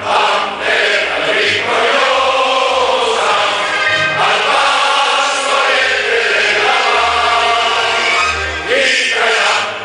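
A large crowd singing a song together, many voices in unison, with brief pauses between phrases.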